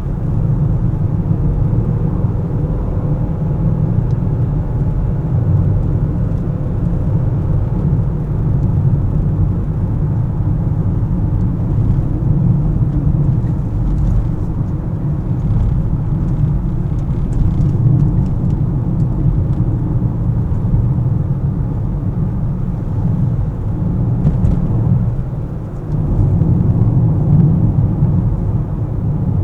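Car driving on city roads: a steady low rumble of engine and tyre noise, which dips briefly about 25 seconds in before picking up again.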